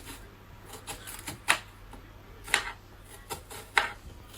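Knife slicing an onion against a cutting board: a handful of sharp, irregularly spaced knocks, the loudest three about a second apart.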